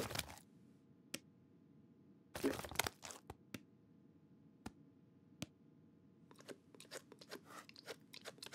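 Cartoon sound effects of a cat crunching dry food, two loud crunchy bursts a couple of seconds apart with single sharp clicks between them. From about six seconds in comes a run of quick scratchy clicks.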